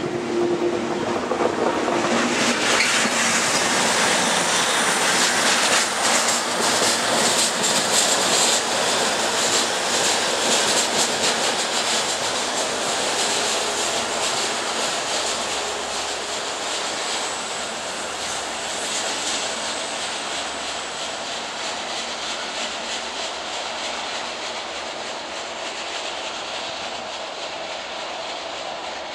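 Adif track-inspection draisine pulling away from the station: a low steady engine hum gives way about two seconds in to a loud drone with rapid wheel clicks over the rail joints, which peaks and then fades slowly as it moves off.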